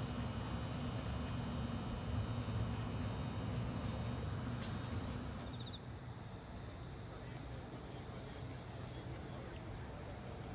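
Low steady rumble of a locomotive-hauled electric train standing at a platform, with faint insect ticks. About halfway through the rumble drops to a softer hum and crickets chirping in a fast, even pulse come to the fore.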